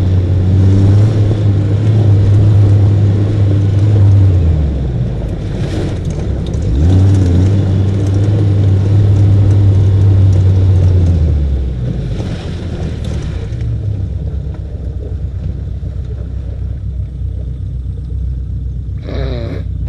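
Off-road buggy engine driving under load over a rough hill track, a loud steady low drone. It eases off briefly about five seconds in, picks up again, then drops to a lower, quieter run a little past halfway.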